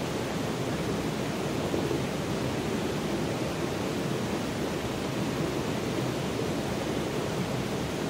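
Shallow stream running over rocks, a steady, even rush of water.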